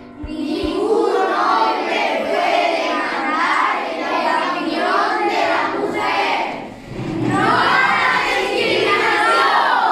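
A class of children singing together, many voices at once, dipping briefly about seven seconds in before carrying on.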